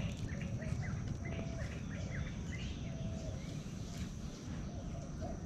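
Birds calling, with repeated short chirps and a repeated short whistled note, over a steady low rumble.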